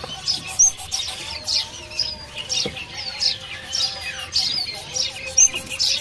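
Many caged birds chirping: quick high chirps and short downward-sliding whistles, a few each second.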